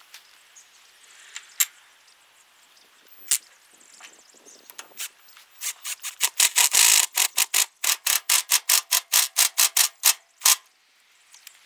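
Cordless drill driving Tapcon concrete screws through the air-conditioner unit's mounting foot into the slab: a couple of single clicks, then a run of rapid sharp clicks, about five a second, for around five seconds, stopping about a second before the end.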